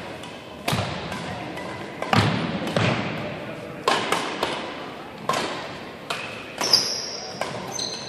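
Badminton rally: sharp smacks of rackets hitting the shuttlecock, about one a second, echoing around a large gym hall, with high squeaks of shoes on the wooden court floor near the end.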